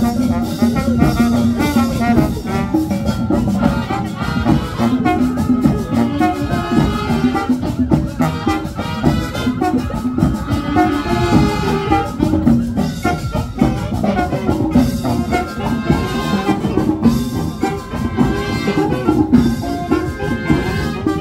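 Latin marching band playing an up-tempo tune, with trumpets and trombones over a dense, steady drumbeat.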